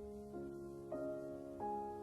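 Soft background music on a piano-like keyboard: a slow melody of held notes, a new note about every half second.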